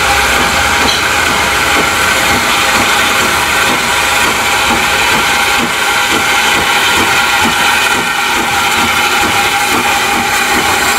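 Hunslet 14-inch saddle tank steam locomotive working a train past at close range: a loud, steady hiss of steam over regular exhaust beats.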